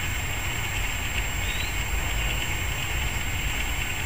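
Steady outdoor background noise: a low rumble under an even high hiss, with a faint short chirp about a second and a half in.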